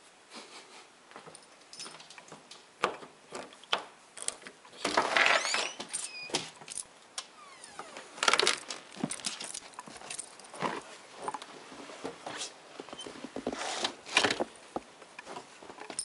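Metal jingling with scattered clicks and rustles as a dog is leashed and taken out, typical of a dog's collar tags and leash clip, with a louder rattle about five seconds in and a brief squeak about a second later.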